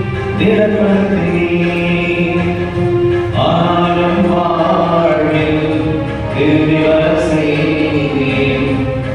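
Voices singing a slow Tamil hymn in long held notes, a new phrase beginning about every three seconds.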